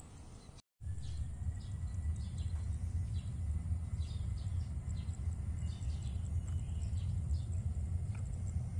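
A steady low rumble with small birds chirping again and again over it, broken by a brief dropout to silence near the start.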